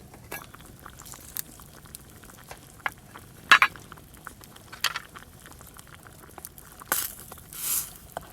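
Scattered clinks and knocks of cookware and utensils, the loudest about three and a half seconds in, with a short swishing noise near the end.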